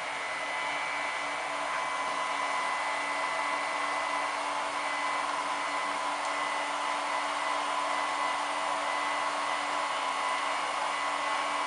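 Cooling fans of UNRC A9 300 W hobby battery chargers running steadily while the chargers are charging a 10S drone battery at about 5.5 A. They make a steady rushing noise with a constant low hum and higher whine beneath it.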